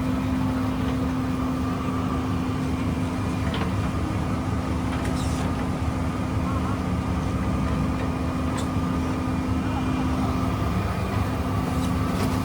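Fishing boat's engine running steadily at a constant pitch.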